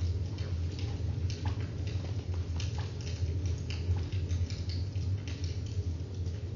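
Scattered light clicks and taps, several a second and uneven, over a steady low hum.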